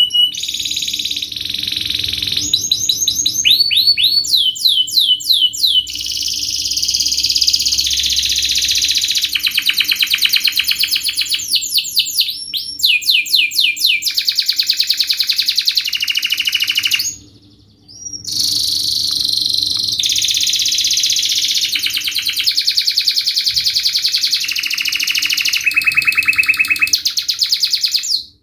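Domestic canary singing a long, fast song of dense rapid trills and quick rising and falling sweeps, high-pitched, with one short pause a little past halfway.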